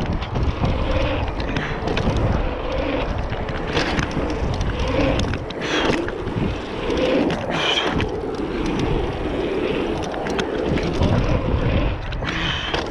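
Mountain bike rolling fast over packed dirt jumps: the knobbly tyres rumble on the dirt, with scattered clicks, knocks and rattles from the bike and wind buffeting the camera's microphone.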